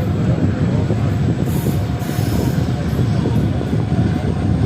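Train running at speed: a steady, dense low rumble of wheels on rail, with two short high hisses about one and a half and two seconds in.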